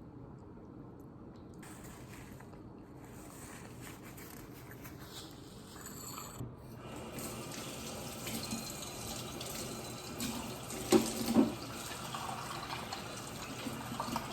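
Water running from a kitchen tap into a sink, faint at first and then much stronger about halfway through, with two sharp knocks about two-thirds of the way in.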